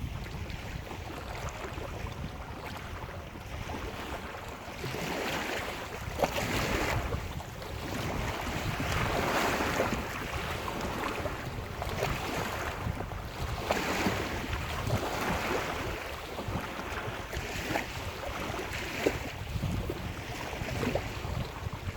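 Lake surf breaking on the shore, the wash swelling and falling back every few seconds, loudest about halfway through. Under it, wind rumbles on the microphone.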